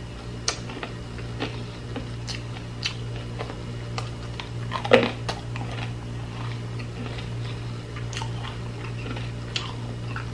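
Close-miked chewing of caramelized banana cue (deep-fried saba banana with brown sugar): soft, sticky mouth clicks and smacks scattered through, one louder about five seconds in, over a steady low hum.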